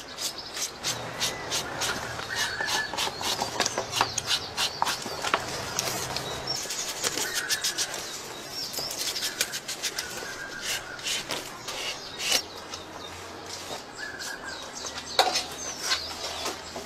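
Crackling, rubbing and many sharp clicks as a crocodile's hide is peeled and cut away from the meat by gloved hands.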